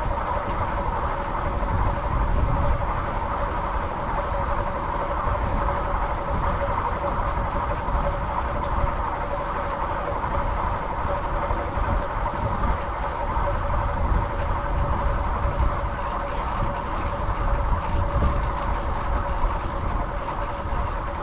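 Steady vehicle noise on the move: a constant hum over a low rumble.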